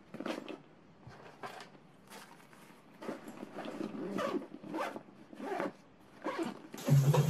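Backpack zipper being pulled in a series of short zip strokes, about two a second. Near the end a louder steady hum starts.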